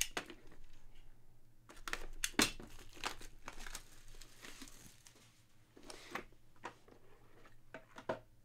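Cardboard card box being opened by hand: a seal tearing and the lid and packaging rustling and scraping in scattered bursts, loudest about two seconds in.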